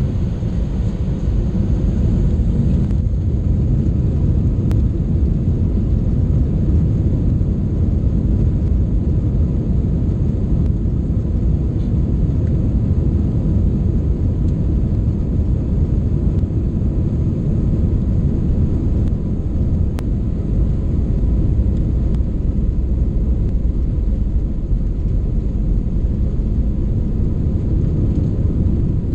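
Steady low rumble of jet airliner cabin noise with the engines running, its loudness holding even throughout. A couple of faint clicks sound above it.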